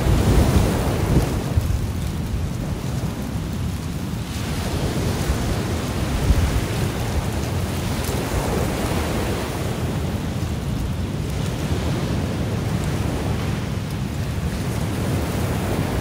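Ocean waves washing onto the shore, swelling and easing every few seconds, with wind buffeting the phone's microphone. A louder low rumble dies away over the first two seconds.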